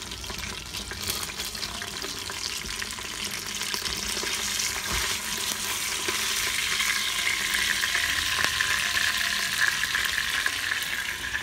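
Oil sizzling and crackling as a golden pomfret pan-fries in the inner pot of an electric pressure cooker, with a spatula scraping the pot as the fish is turned and lifted. The sizzle grows louder about halfway through.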